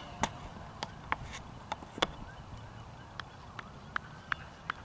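A series of short, sharp clicks or taps at irregular intervals, roughly two a second, over a faint, steady outdoor background.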